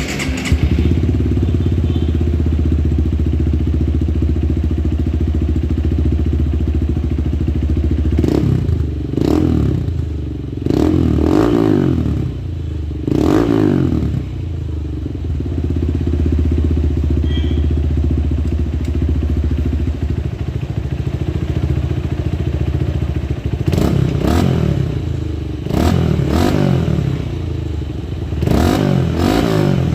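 Honda XR150L/CRF150L single-cylinder four-stroke engine with a T4 ProPipe Shorty aftermarket exhaust, idling steadily. Its throttle is blipped several times a little after a third of the way in, and again near the end, each rev rising and falling quickly back to idle.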